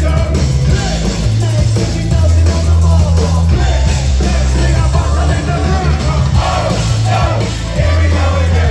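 Loud live band music with a heavy bass line and a wavering sung vocal over it.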